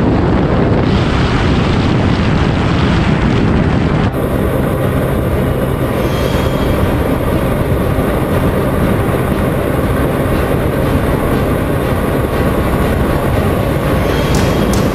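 Heavy wind rush over the Honda CBR 125R's single-cylinder engine cruising at steady highway speed. About four seconds in the sound changes abruptly, and the engine's steady drone stands out more.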